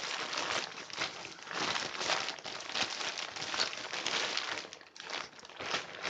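Thin synthetic tent fabric being handled and crumpled: a dense, irregular crinkling and rustling that goes on throughout.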